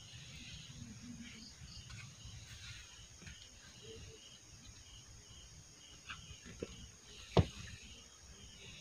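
Wooden boards of a small coil frame being handled and fitted together: faint scraping and a few light clicks, then one sharp wooden knock about seven seconds in.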